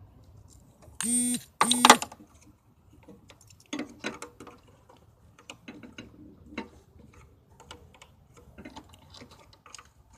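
Two short honks from a 2006 Hummer H3's horn, followed by scattered irregular clicking from the vehicle, an electrical misbehaviour the owner gets on connecting the battery while the engine will not turn over.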